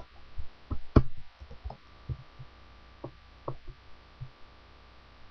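Computer keyboard and mouse clicking irregularly, about a dozen sharp clicks, over a steady electrical mains hum on the recording.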